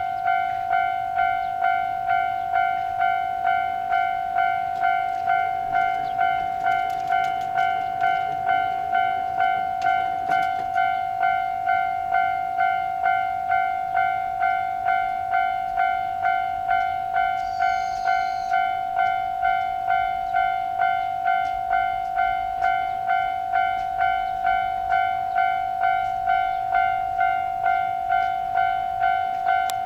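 Japanese level-crossing alarm bell ringing its electronic "kan-kan" tone, one steady pitch struck about twice a second without pause. A train passes faintly a few seconds in, with a short high squeal near the middle.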